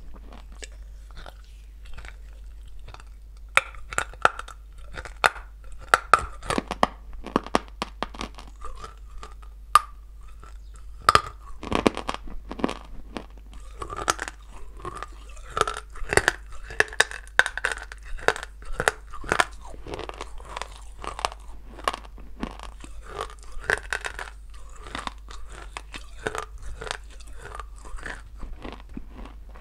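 Biting and chewing a dry lump of blue Ural clay: sharp, irregular crunches, sparse for the first few seconds, then coming thick and fast as it is chewed.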